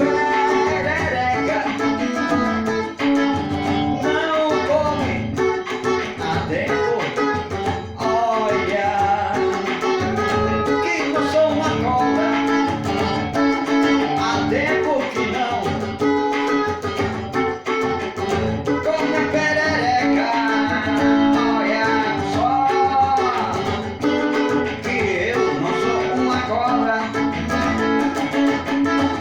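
Music: a guitar-led song with singing.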